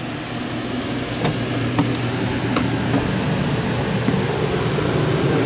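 A steady machine hum with a fan-like rush, growing louder, with a few light knocks about one and two seconds in.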